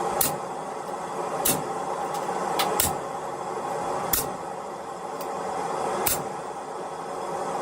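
Hammer blows on hot iron at the anvil: about six sharp strikes, irregularly spaced a second or two apart, over the steady roar of the forge.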